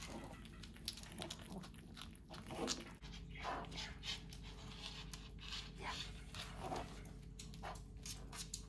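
A Pomeranian and a Maltipoo nosing and nibbling at whole eggs on a wooden floor: scattered sniffs, small bites and light taps and scrapes of eggshell against the floor.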